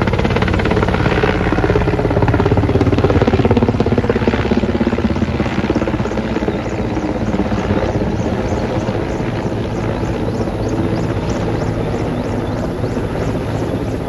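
Large helicopter flying overhead, its turbine engines and main rotor running steadily. It is slightly quieter in the second half, where the rhythmic beat of the rotor blades comes through more clearly.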